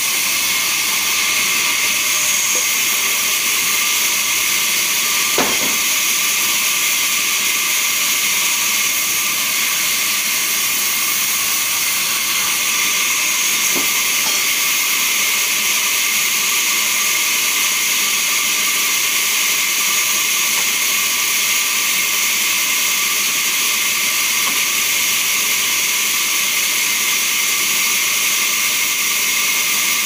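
Large vertical log band saw running and cutting lengthwise through a log as it is fed along the carriage: a steady, high-pitched hiss with a whine. A single knock about five seconds in.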